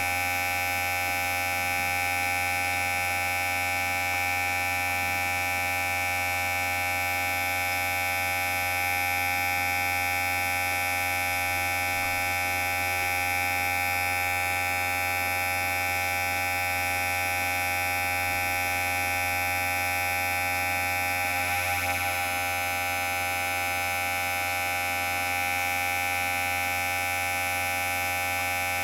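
Electric hair clipper running with a steady buzz, a strong low hum under a stack of higher tones. The buzz wavers briefly about three quarters of the way through.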